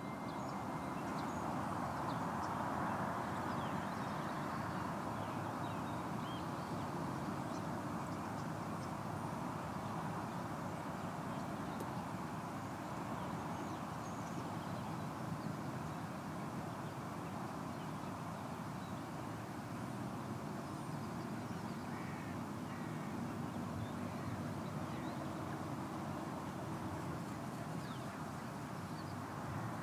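Outdoor nature ambience: a steady, even rush of noise with faint, scattered bird calls.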